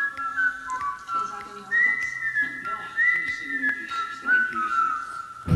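A whistled tune: clear steady notes stepping up and down between pitches, with quieter sounds beneath it and a thump at the very end.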